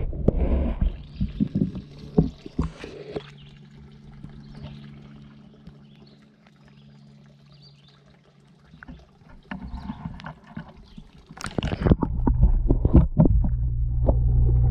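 Pond water sloshing and splashing around a GoPro action camera as it is dipped at the waterline and handled, with scattered knocks. About twelve seconds in, a burst of splashes and knocks as it goes under, and then a steady low muffled underwater rumble.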